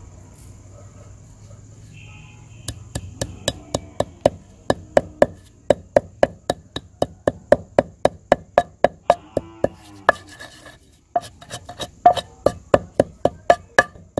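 Long wooden pestle pounding cumin and dried coriander seeds in a stone mortar: sharp, steady knocks about three a second, starting a few seconds in, with a brief pause about three-quarters of the way through before they resume.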